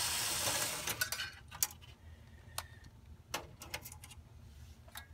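Screws being worked out of the copier's hard drive mounting plate with a handheld screwdriver: a loud rasping burst in the first second, then scattered light metallic clicks and clinks of the driver, screws and sheet-metal parts.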